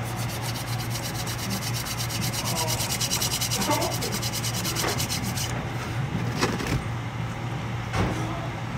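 Hands rubbed briskly together close to the microphone, a fast, even scraping rhythm that stops about five and a half seconds in. A few light knocks follow, over a steady low hum.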